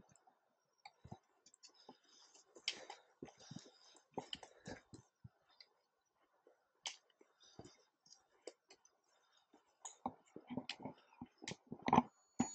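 Footsteps and trekking-pole tips on a stony trail: scattered, irregular light clicks and scuffs, coming more often near the end.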